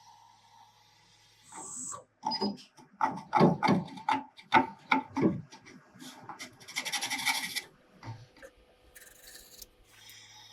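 Hand tool rubbing and scraping against a turned wooden handle blank: a run of irregular, loud strokes several times a second, starting about a second and a half in and stopping near the end, with a brief hissy rapid scratching around two-thirds of the way through.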